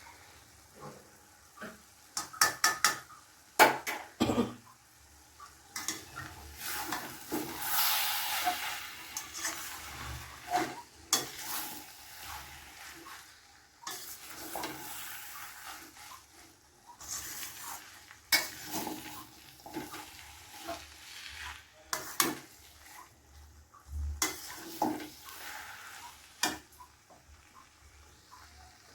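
A metal spatula stirring and scraping cabbage sabzi in a pan, with sizzling and several sharp knocks of the spatula against the pan, the knocks bunched a few seconds in.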